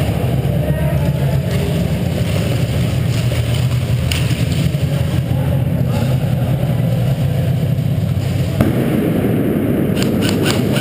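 Steady low rumble with a few scattered sharp pops, then a quick string of about four cracks near the end: airsoft guns firing.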